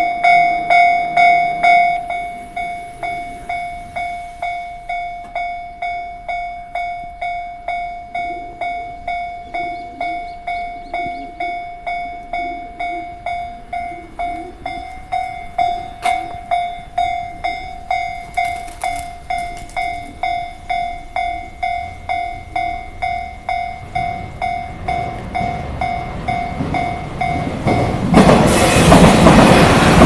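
Japanese railway level-crossing warning bell ringing in a steady, even rhythm of about two strikes a second. Near the end a train comes through the crossing at speed, and its running noise swells up to become the loudest sound, over the bell.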